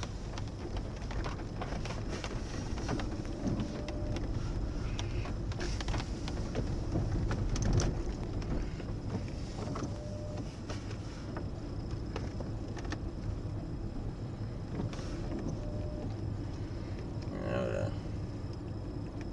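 Inside a Mercedes car driving slowly over a rough, wet construction-site surface: a steady low rumble of engine and tyres, with scattered clicks and knocks from the uneven ground. The loudest knock comes about eight seconds in.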